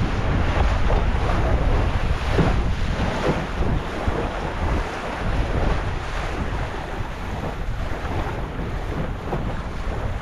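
Wind buffeting the microphone over the rush and slap of choppy water along the hull of a Sunfish sailboat under sail. The wind noise eases slightly after a few seconds.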